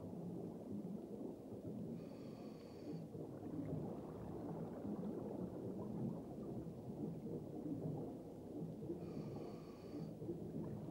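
Underwater reef sound: a steady low rumbling, crackling noise, with a brief whistling hiss twice, about seven seconds apart.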